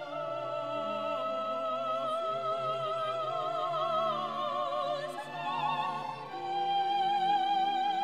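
Background music: an operatic voice sings long-held notes with a wide vibrato, over orchestral accompaniment.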